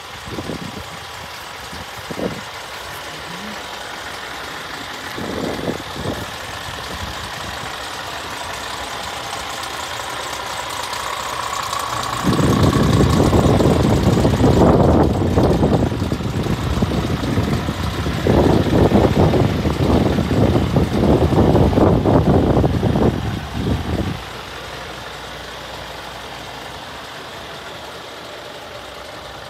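Steady hum of a Scania R440 truck's diesel engine idling, with wind buffeting the microphone in heavy, uneven gusts for about twelve seconds midway.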